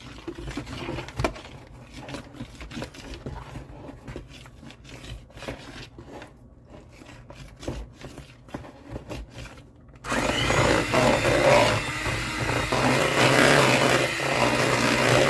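Irregular scraping and tapping in a mixing bowl, then about ten seconds in an electric hand mixer starts and runs steadily, beating flour into the butter and cream cheese dough.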